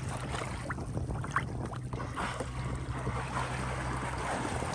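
Sea water lapping and splashing around a kayak, with wind on the microphone and a steady low hum underneath.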